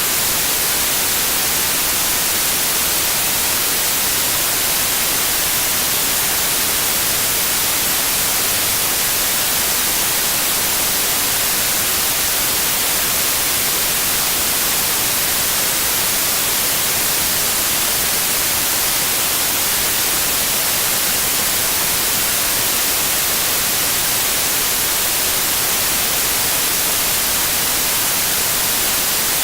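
Steady synthesized white noise: an even, unchanging hiss, brightest in the high frequencies.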